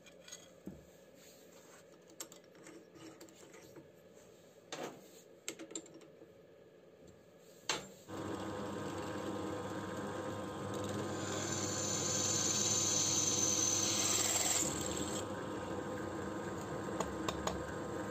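Light clicks and rubbing as metal chips are brushed and the scroll saw's metal arm is handled, then, about eight seconds in, an electric drill starts and runs steadily, its bit boring a lightening hole through the arm with a harsher cutting hiss in the middle before it stops near the end.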